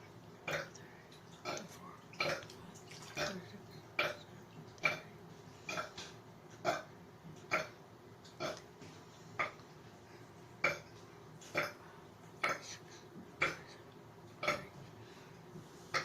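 A person burping over and over on purpose, short burps in quick succession at about one a second, some seventeen of them.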